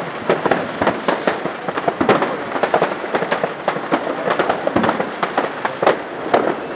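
Fireworks and firecrackers going off all over a city at once: a dense, continuous crackle of many overlapping bangs and pops, some louder and some fainter, with no pause.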